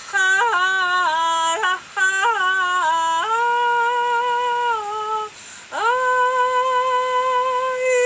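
A woman singing wordless light-language tones: a quick string of short notes that bend and slide in pitch, then a steady held note, a brief break, and a new note that swoops up from below and is held long to the end.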